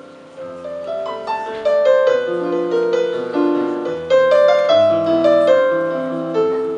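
Digital stage piano played solo: chords and single melody notes, each struck and left to ring and fade.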